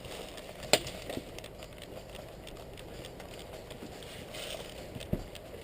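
Faint outdoor rustling with a single sharp click about a second in and a dull low knock near the end.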